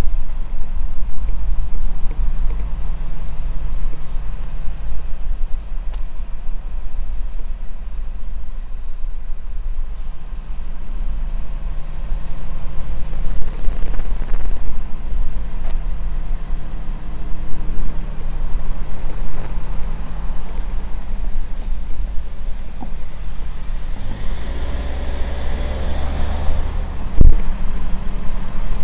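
Steady low engine rumble of a heavy vehicle such as a diesel truck. About 24 seconds in, a louder hiss rises and holds for roughly three seconds, then there is a single sharp knock.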